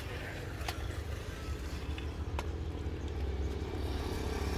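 A motor engine running with a low rumble, slowly growing louder, with two faint clicks in the first half.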